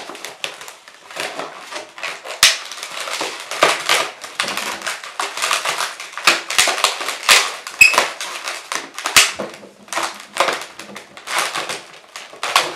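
Latex modelling balloons squeaking and rubbing against each other as balloon wheels are twisted onto a balloon car body: an irregular, rapid string of sharp squeaks and creaks.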